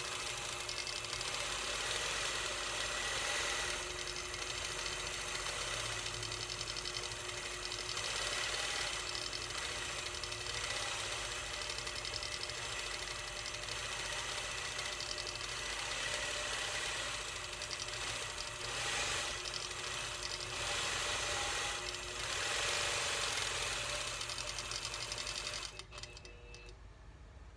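A1 Quilting 923 Elite longarm quilting machine stitching steadily, its needle running at high speed with the level swelling and easing a few times; it stops suddenly near the end.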